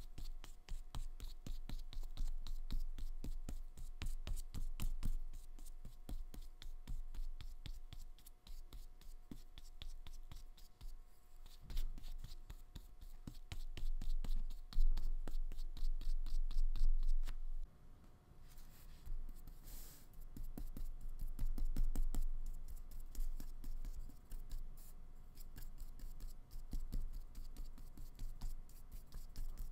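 Flat paintbrush stroking acrylic paint onto paper in many quick, scratchy dabs and strokes, over a faint steady hum.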